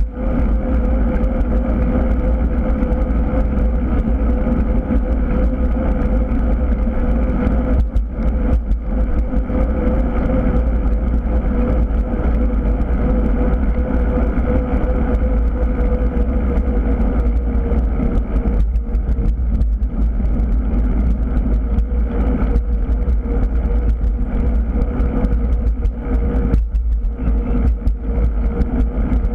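Steady wind rumble on the microphone of a camera mounted on a moving bicycle, with road noise from the tyres on asphalt and a steady hum.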